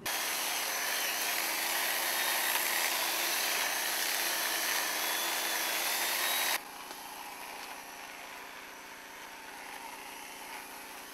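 Loud, steady mechanical noise with a strong hiss, cutting off abruptly about six and a half seconds in to a quieter, steady hum with a few held tones.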